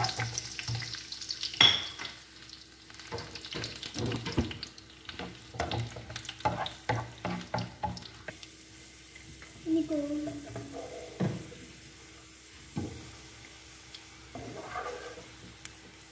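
Cashew nuts and raisins frying in oil in a metal pan, stirred with a wooden spatula: a run of irregular clicks and knocks as the spatula scrapes and taps the pan, over a light sizzle that fades in the second half.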